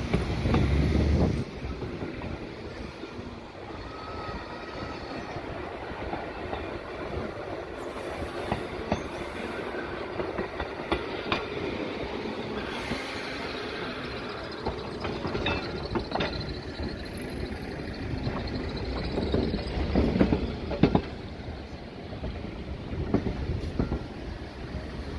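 Interurban tram running along its track: a steady rumble of wheels on rail, with scattered sharp clicks and clatter from the wheels over rail joints.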